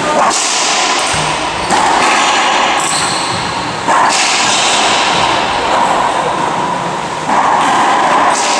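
Racquetball rally: a series of sharp cracks of racquet strikes and the ball hitting the court walls, about a second or so apart, each echoing in the enclosed court.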